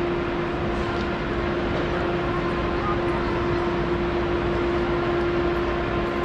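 Busy railway station concourse ambience: a constant wash of crowd hubbub and footsteps with a steady hum running underneath.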